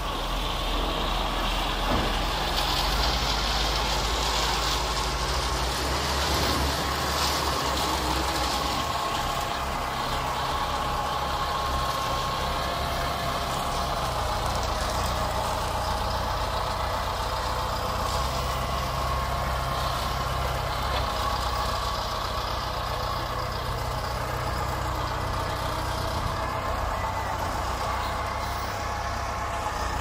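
Diesel engines of self-loading concrete mixer trucks running steadily at low speed, a continuous low hum with a steady higher tone over it.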